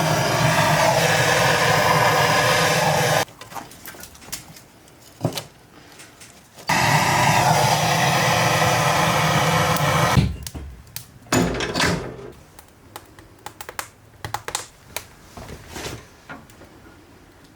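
A small motor running loudly in two steady bursts of a few seconds each, stopping suddenly each time, followed by scattered light clicks and knocks.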